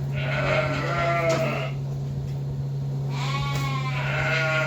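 Sheep bleating: two long, wavering bleats a little over a second apart, over a steady low hum.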